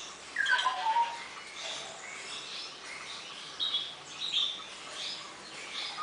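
Rufous treepies calling as a pair: a loud call falling in pitch about half a second in, then two short high calls around the middle, over fainter bird chirping.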